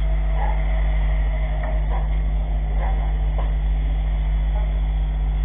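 Steady low hum of a running engine, level throughout, with a few faint short sounds over it.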